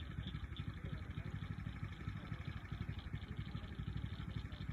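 Pond ambience: a high chirping chorus pulsing about two to three times a second over a steady low rumble.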